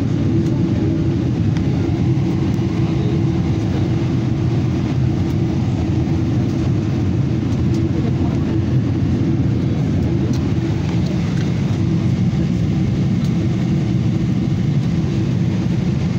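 Steady, loud cabin noise of an airliner in flight, heard from a window seat: an unbroken, mostly low-pitched rumble of engines and rushing air.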